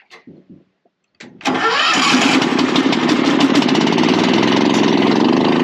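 An engine started on choke: it catches after a very short crank a little over a second in and then runs steadily.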